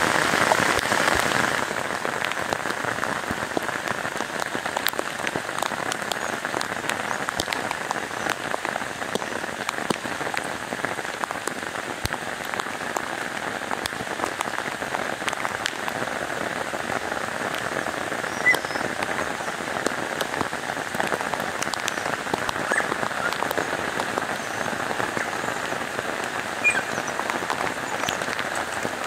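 Heavy rain pouring steadily onto woodland leaves and ground: a dense hiss of countless drops, a little louder in the first second or so. Two brief, sharper sounds stand out, about two-thirds of the way through and near the end.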